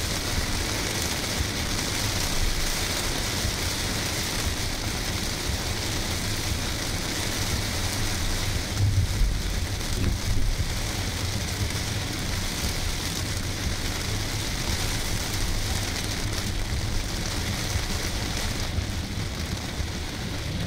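Heavy rain falling on a car's roof and windscreen, heard from inside the cabin as a steady, even hiss with a low rumble underneath. Two brief louder low thumps come about halfway through.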